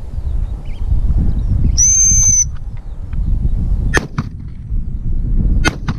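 Wind buffeting the microphone, with one short steady blast on a gundog whistle about two seconds in. Two sharp clicks follow, near the middle and near the end.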